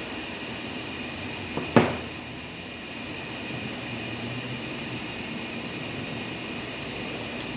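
Steady mechanical hum with a faint high whine, and one sharp knock about two seconds in.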